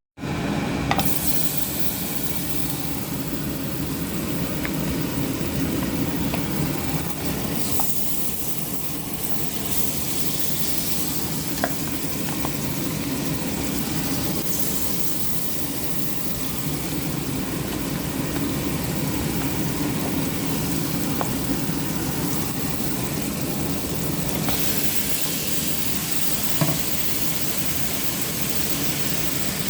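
Curry goat sizzling as it fries in a hot pot, a steady crackle with a few light clicks scattered through.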